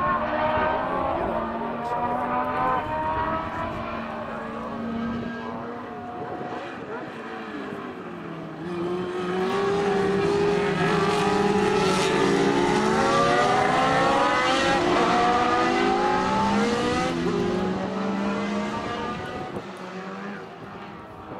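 Historic Formula One cars' racing engines at high revs, the engine notes climbing and dropping back again and again as the cars accelerate through the gears. Loudest about midway, when a group of cars passes close, then fading toward the end.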